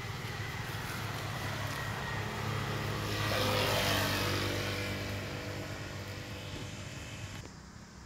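A motorbike engine passing along the road, growing louder to a peak about four seconds in and then fading. The sound drops off suddenly near the end.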